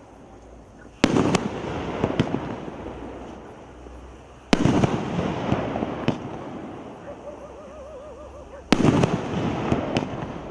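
A 2-inch, 36-shot firework cake firing: three loud booms about four seconds apart, each trailing off over a few seconds with smaller pops.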